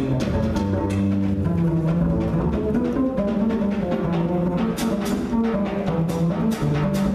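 Small jazz group playing live: held low and mid notes over drums, with frequent cymbal and drum strikes.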